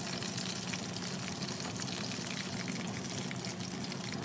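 Hot oil sizzling steadily with fine crackles, typical of chicken pieces deep-frying, over a low steady hum.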